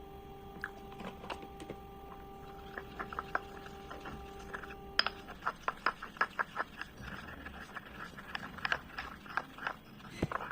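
Slate pencils crunching as they are bitten and chewed: sharp, crisp cracks, scattered at first, then a quick run of crunches from about halfway.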